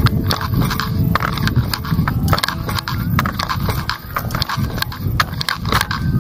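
Footsteps on a paved road, hard knocks about two to three times a second, over a steady low rumble of wind on the microphone.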